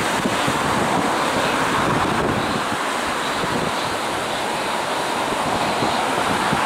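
Wind buffeting the microphone: a steady rushing noise with an uneven, fluttering rumble underneath.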